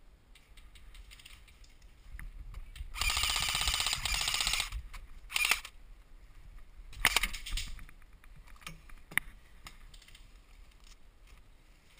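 Airsoft M4 electric rifle firing a rapid full-auto burst of about a second and a half, about three seconds in, followed by a few single sharp cracks.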